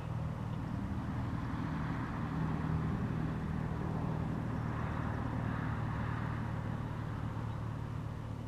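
Steady engine drone of a motor vehicle, a low even hum with a rushing noise above it, swelling slightly midway.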